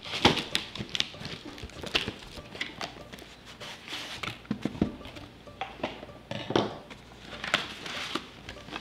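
Hands handling cardboard boxes and paper packaging, making irregular taps, scrapes and rustles.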